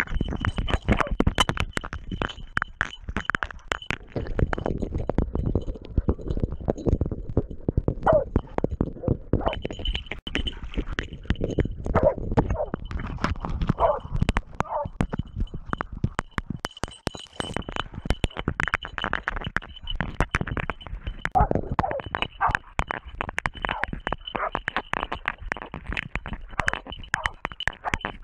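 Hunting dog grappling with a wild boar in a shallow stream: water splashing and thrashing with rapid knocks and scuffs against the dog's body camera, and short animal cries now and then.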